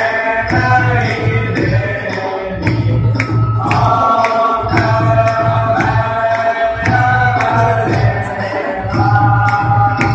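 Aarti devotional music: a melody sung in long held notes over a pulsing drum and a steady beat of sharp percussion strikes.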